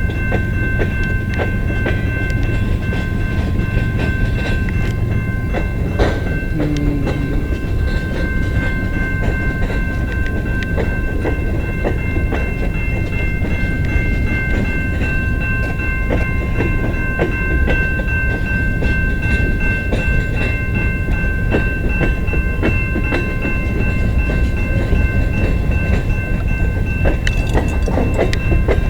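CN freight train, with GE C44-9W and ES44AC diesel locomotives, backing slowly into the yard: a steady low rumble with wheels clicking over rail joints and a steady high-pitched squeal throughout.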